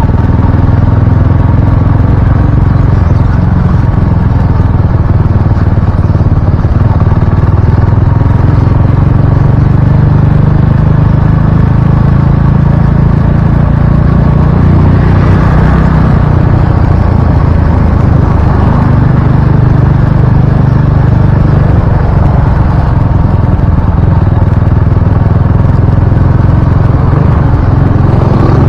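Motorcycle ride heard through a helmet-mounted Akaso Brave 4 action camera's microphone: a loud, steady low rumble of wind buffeting the mic over the engine. The audio is still blown out by wind noise despite the mic fix.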